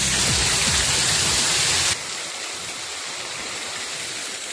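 Heavy rain pouring down as a steady, dense hiss. It drops abruptly quieter about two seconds in, then keeps on steadily.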